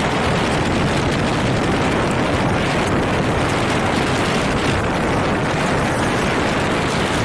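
Strong tornado wind: a loud, steady rushing noise that never breaks or changes.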